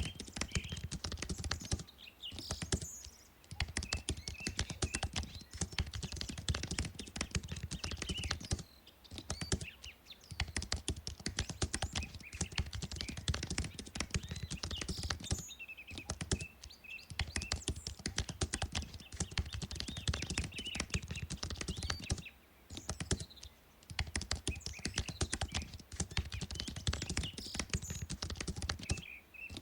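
Fast typing on a computer keyboard: steady runs of key clicks broken by brief pauses every few seconds.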